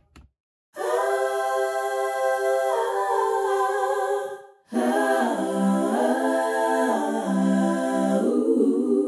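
Background music of wordless voices or a choir-like pad holding long chords. It plays in two phrases, with a short break about four seconds in.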